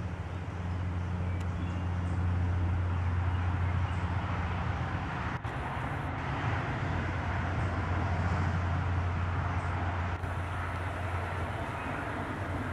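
Steady low mechanical hum, like a running engine or motor, under an even wash of outdoor background noise.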